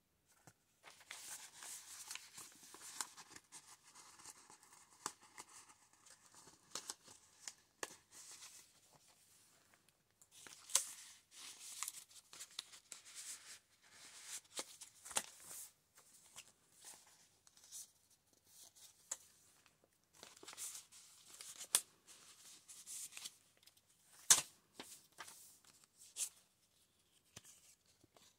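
Paper pages and cards of a handmade junk journal rustling and flapping as they are turned and handled, in stop-start stretches with a few sharper taps, the loudest near the end.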